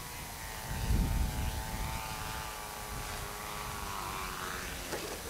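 An RC pylon racer's small OS 25FX glow engine buzzes at low throttle on its landing approach. Its pitch sags slowly, then swells and rises briefly as it passes close, and a short knock comes near the end. Wind rumbles on the microphone about a second in.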